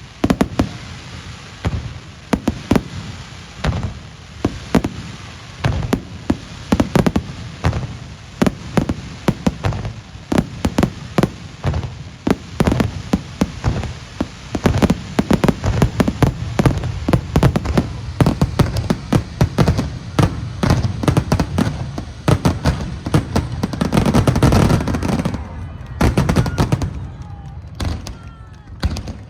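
Fireworks display: aerial shells bursting one after another in many sharp bangs, coming thicker after the middle, with a dense cluster of bursts near the end.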